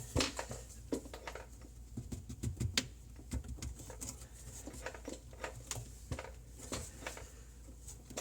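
Irregular light clicks and knocks of plastic and metal garbage disposal mounting parts being handled, with a few louder taps about a second in and again near the middle.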